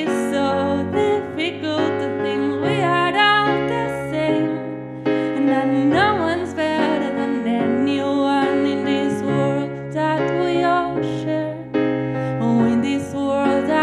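A woman singing a slow, tender ballad live, accompanying herself with held chords on an electric piano keyboard.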